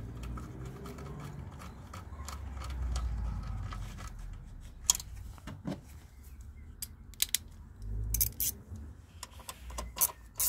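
Small metallic clicks and clinks of a socket bit and screws being handled while the new throttle body's mounting screws are turned in by hand. A low rumble comes and goes underneath.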